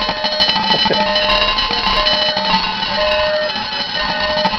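Several alarm clocks going off at once. One beeps about once a second over a dense, steady layer of other ringing and buzzing alarm tones.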